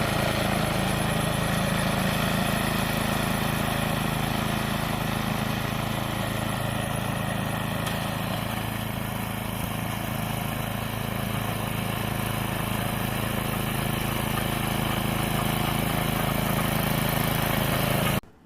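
Toro 828 snowblower's single-cylinder engine running steadily. It cuts off suddenly near the end.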